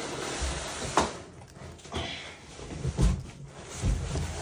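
A shrink-wrapped inner box being lifted out of a large cardboard box: rustling and scraping of plastic wrap and cardboard. There is a sharp knock about a second in and a low thud about three seconds in.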